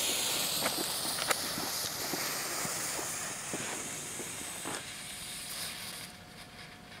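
Lit fuse of a Lesli Sputnik single-shot bomb tube hissing and sputtering as it burns down, with a few small crackles. The hiss fades about six seconds in, just before the shell launches.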